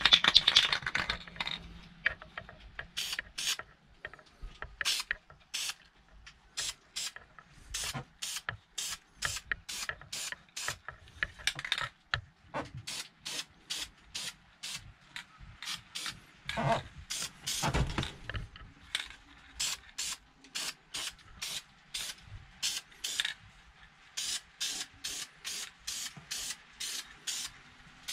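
Aerosol can of engine enamel spray paint being sprayed in many short puffs, each a brief hiss with quiet between, quickening to about two or three puffs a second near the end. There is a louder rush at the very start and a couple of heavier knocks around the middle.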